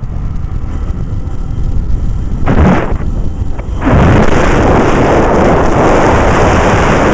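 Wind buffeting the microphone of a moving motorcycle: a rough low rumble, a short loud gust, and from about four seconds in a loud, steady rush.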